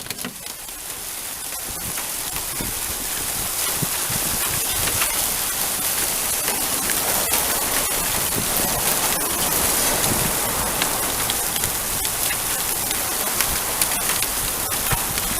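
Heavy thunderstorm downpour, building over the first few seconds into a steady, loud rush, dense with sharp ticks of drops striking surfaces.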